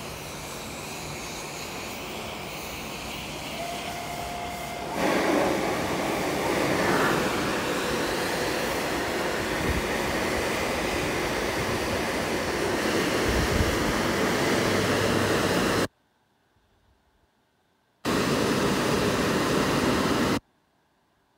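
Dryer blowers of a WashTec rollover car wash running with a steady noise that steps up louder about five seconds in. The sound cuts out abruptly about sixteen seconds in, returns for a couple of seconds, then cuts off again near the end.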